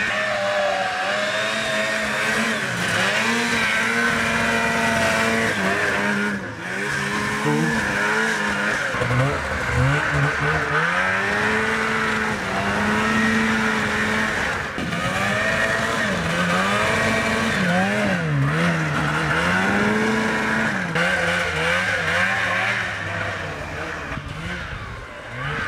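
Snowmobile engine running hard and revving up and down over and over, its pitch climbing and dropping every second or two as the throttle is worked.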